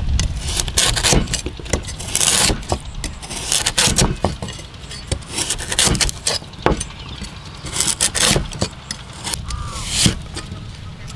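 Cleaver slicing a ginger-like root on a round wooden chopping board: irregular sharp knife strokes knocking into the wood, some clustered quickly, others spaced out. Near the end the cleaver is cutting a shallot.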